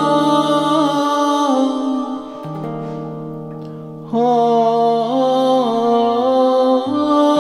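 Electric guitar played through a voice-and-guitar multi-effects pedal with its harmony effect on, long held notes layered into chords. The harmonised parts move together, with a fresh, louder chord about four seconds in.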